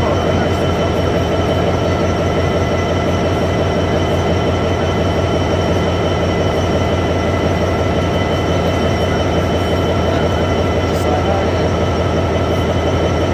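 Class 66 diesel locomotive's two-stroke V12 engine idling steadily while standing, with a steady high whine over the low engine note.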